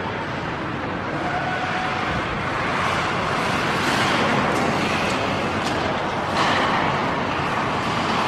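Steady rush of jet aircraft engine noise, an even broad roar that swells a little midway, with a few faint clicks.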